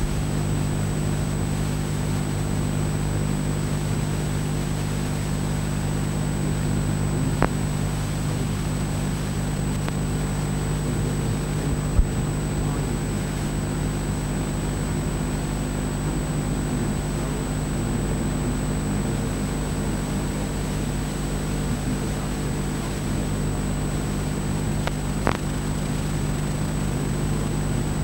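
Steady low hum with hiss and a thin high-pitched whine, broken only by three faint clicks, about a third of the way in, near halfway and near the end.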